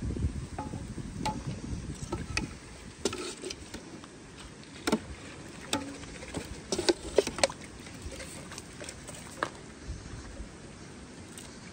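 Ladle serving broth from a large metal stock pot, with scattered light clinks and knocks, several close together a few seconds in. A low rumble in the first couple of seconds.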